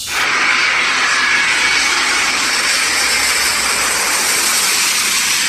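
Twin-engine Airbus A350 airliner's jet engines passing low overhead on approach with gear down: a loud, steady rush with a faint whine.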